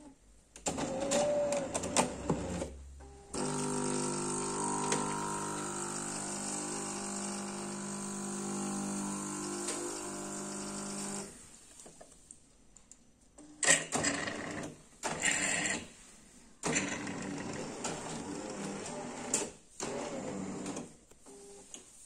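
Jura Impressa A5 bean-to-cup coffee machine working through a brew cycle. Its grinder runs with a steady, even hum for about eight seconds. After a short lull, the pump and brewing unit work in irregular bursts as coffee runs from the spouts.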